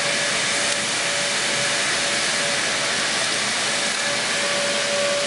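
Steady rushing hiss with a constant whine from an automatic car wash's machinery running.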